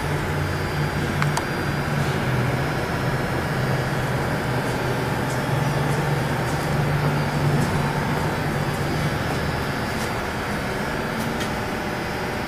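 P&H welding positioner's electric drive running, a steady low hum with a few faint ticks.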